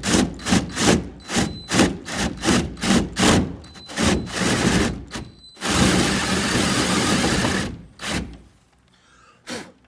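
Drill slowly turning a toothed drywall cutting tool into the wall, its teeth rasping through the gypsum board in rhythmic strokes about two or three a second, then cutting steadily for about two seconds before stopping. A single click near the end.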